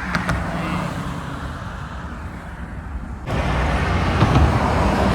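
Roadside traffic: a vehicle engine hums steadily under a low haze of road noise, then about three seconds in, louder traffic noise starts suddenly and keeps building.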